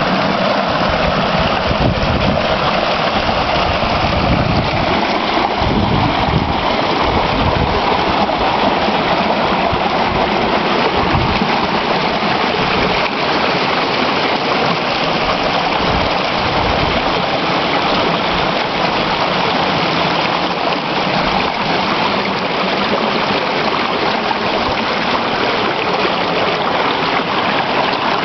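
Shallow mountain creek running and splashing over boulders in a small cascade, a steady rush of water with an irregular low rumble underneath.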